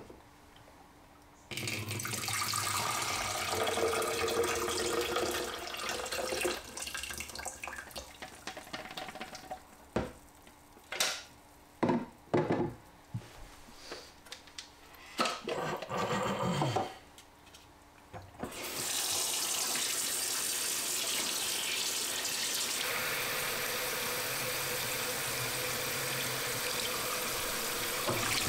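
Liquid poured from a film developing tank into a plastic jug in a sink, then scattered knocks and short splashes as the tank and its parts are handled. About two-thirds of the way through, a tap starts running steadily into the open developing tank to wash the film.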